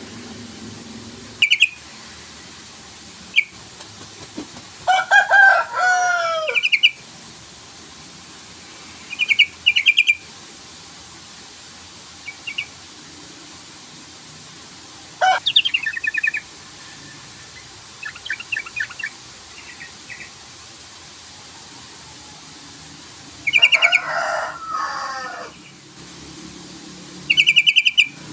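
Yellow-vented bulbul (trucukan) singing short, bubbly, chattering phrases every few seconds. The longer, louder phrases have notes falling in pitch. This is the call used to provoke a rival into singing.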